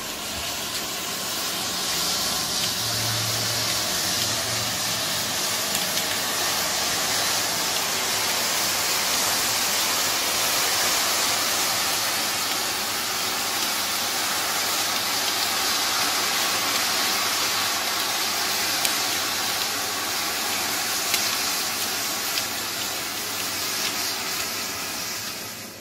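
Mass of burning matchsticks giving a steady rushing hiss as the match heads flare and the fire burns.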